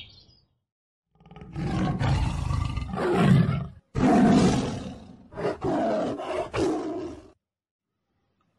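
Tiger roaring: a long deep roar starting about a second in, followed by two or three shorter roars, the last ending about seven seconds in.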